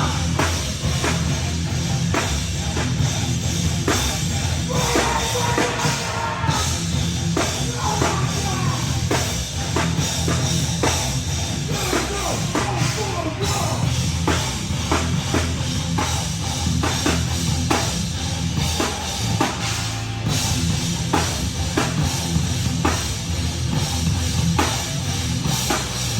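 A live band playing loud heavy rock, with a pounding drum kit.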